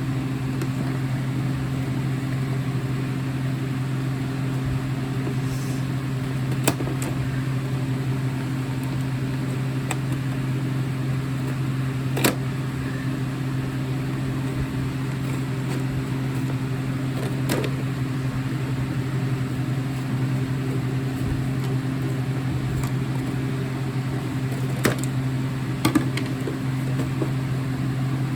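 A few sharp clicks and taps of packaging being worked open by hand, over a steady low hum.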